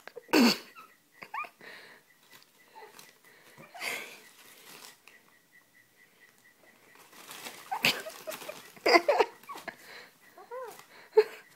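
Little corella cockatoo calling in short, harsh screeches and squawks: a loud one about half a second in, a quieter rough call near four seconds, a cluster around eight to nine seconds in, and a few short rising-and-falling chirps near the end.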